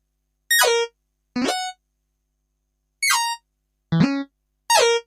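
Five short synthesized cartoon-style sound effects, each a pitched note that slides quickly down or up, with short silences between them.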